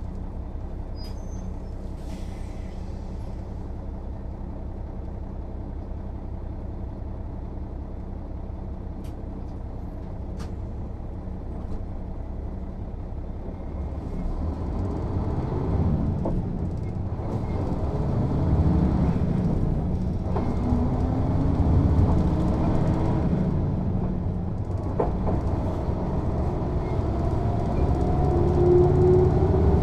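Mercedes-Benz O 407 city bus's diesel engine idling steadily, then pulling away about halfway through. It gets louder, and the engine note rises in pitch again and again as the bus accelerates through its gears. A few light clicks come in the first half.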